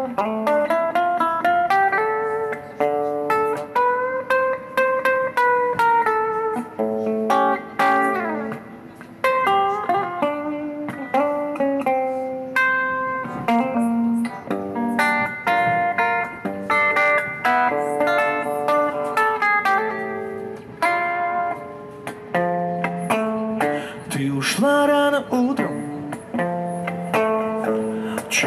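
Hollow-body electric guitar playing an instrumental break between sung verses: a picked single-note melody with notes bent and slid up and down.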